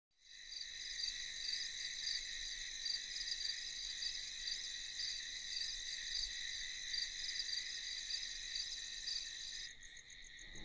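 Crickets chirring steadily as a night ambience: a high, continuous trill with a faint pulse about twice a second. It thins out about a second before the end.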